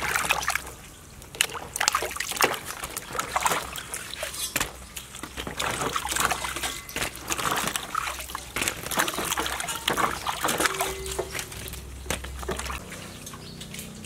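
Hands washing eggfruit in a metal basin of water, with irregular splashing, sloshing and dripping as each fruit is rubbed and lifted. Music comes in near the end.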